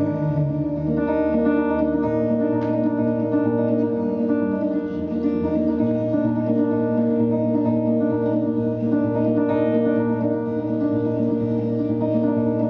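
Instrumental break in a live song: guitar chords played over low bass notes that change every few seconds, with no singing.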